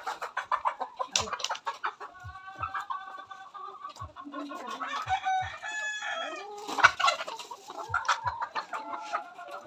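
A large flock of caged chickens clucking and calling over one another without a break.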